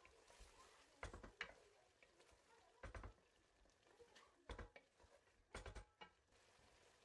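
Wooden spoon knocking and scraping against a granite-coated pot while chicken pieces in thick masala are stirred, in four short bursts of clicks about a second or so apart.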